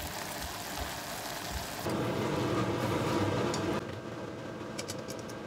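Soy-simmered beef and ginger sizzling in a stainless saucepan as its liquid cooks off, a steady hiss. The hiss stops a little over halfway through, followed by a few faint clicks of chopsticks against the pan.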